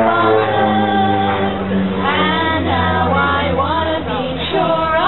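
Female vocal trio singing together into microphones, several voices sounding at once.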